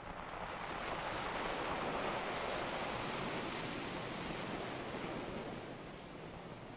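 Surf on the film soundtrack: a wave washes in, swelling over the first second, loudest about two seconds in, then slowly ebbing away.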